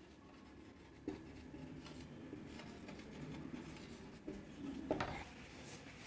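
Marker pen writing on a whiteboard: faint scratching strokes, with a few light taps and one slightly louder tap about five seconds in.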